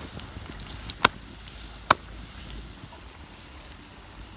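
Two sharp chopping blows on wood, a little under a second apart.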